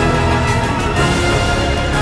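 Background music playing steadily, with sustained chords over a strong bass.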